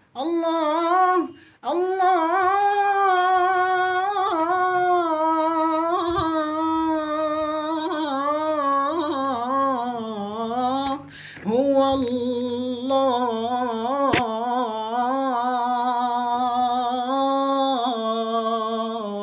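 A single unaccompanied voice sings a wordless melody in long held notes with vibrato, pausing briefly about eleven seconds in.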